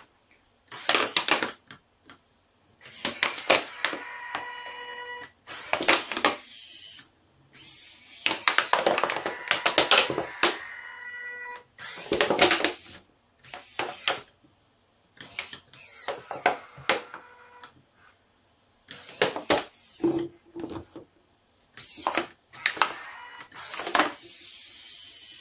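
Hobby servo motors of a 3D-printed robot gripper whining in repeated short bursts as the fingers close and open, with the thin plastic of an empty beverage bottle crackling as the gripper squeezes it.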